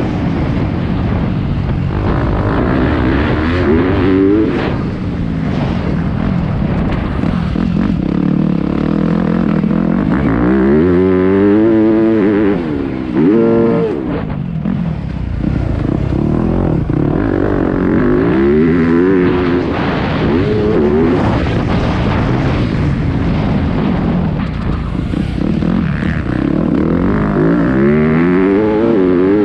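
Yamaha 250 motocross bike's engine, heard close up from an onboard camera, revving hard and dropping back again and again as it races around the dirt track. The sharpest rise and fall comes about halfway through.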